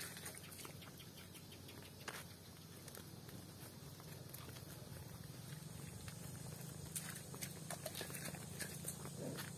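Cattle walking on a paved road: scattered hoof steps and clicks on the asphalt, more of them in the second half, over a low steady hum.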